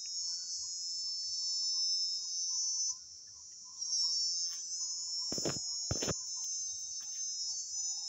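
A chorus of insects trilling steadily at a high pitch, breaking off for under a second about three seconds in. Two sharp knocks come about half a second apart, a little past the middle.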